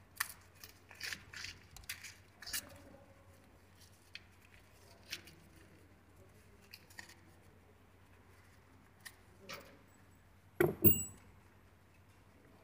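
Scattered small clicks and rustles of hands handling small fitting parts and plastic wrapping, busiest at the start, with a louder crinkling burst near the end.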